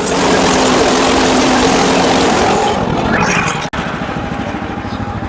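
Portable band sawmill's gas engine running under load while the band blade cuts through a log. About three seconds in, the cutting noise falls away as the cut ends and the engine runs on more quietly.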